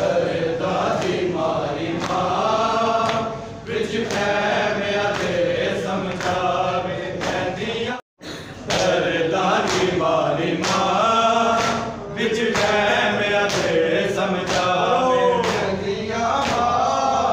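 A crowd of men chanting a Punjabi noha (Shia lament) together, with steady rhythmic chest-beating (matam) marking the beat. The sound drops out suddenly for a moment about halfway through, then the chant goes on.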